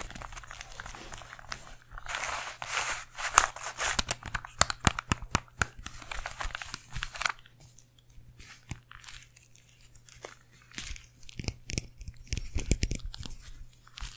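Plastic Rubik's cube being twisted close to a microphone: a dense run of clicks and scraping clatter for about seven seconds, then scattered quieter taps and knocks.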